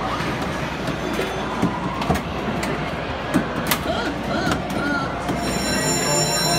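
Rattling din of a hall full of antique coin-operated mechanical arcade machines, with scattered sharp knocks and clicks. About five seconds in, steady held musical tones from a mechanical music machine begin.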